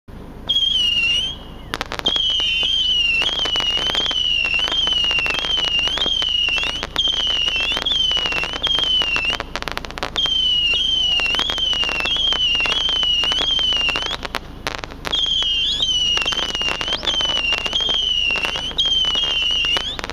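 Marvel Fireworks Mini Missiles 225-shot missile cake firing: a near-continuous stream of whistling missiles, a high whistle wavering up and down in pitch over rapid crackling pops. It breaks off briefly about a second and a half in, about ten seconds in, and about fifteen seconds in.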